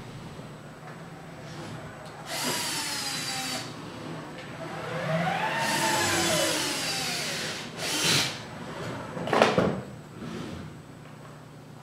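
Small electric motors whining in two runs, the pitch gliding up and then down in the second. Two sharp knocks and a short clatter of hard parts come after, the second knock the loudest.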